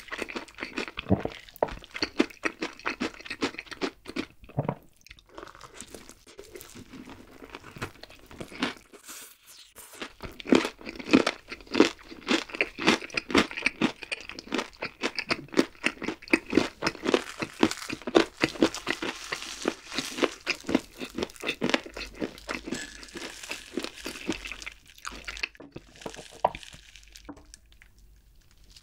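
Close-miked chewing of crispy fried chicken, with quick crunches several times a second, a short pause partway through, and softer sounds near the end.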